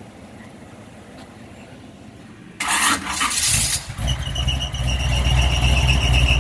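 A 496 big-block V8 in a 1983 Chevrolet C10 Silverado is cranked by the starter about two and a half seconds in, catches a second later and runs at a loud idle. A high, steady belt squeal sits on top of the idle, the sign of a drive belt that needs tightening.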